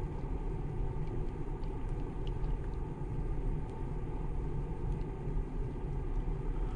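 Wind buffeting the microphone as a steady low rumble, with a few faint scattered ticks.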